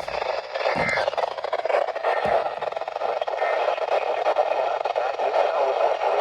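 Weather radio receiver giving a steady hiss of static between broadcasts, with a couple of soft low thuds about one and two seconds in.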